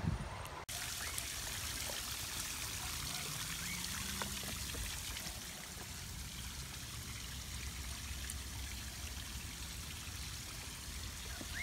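Steady sound of running water pouring and trickling over rocks from a small waterfall, starting abruptly under a second in.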